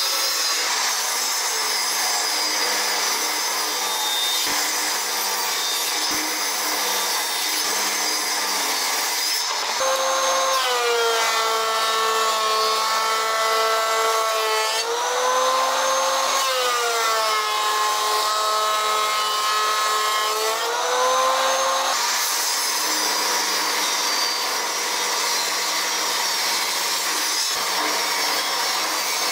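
Woodworking power tools cutting pine: a table saw runs and rips a board, then about ten seconds in a benchtop thickness planer takes over, its motor pitch sagging as boards feed through and recovering between two passes. Near the end the table saw is ripping again.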